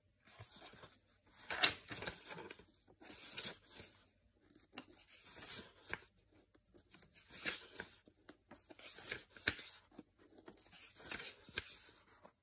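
Paperback book being handled and its pages turned: repeated papery rustles with a few sharp page flicks.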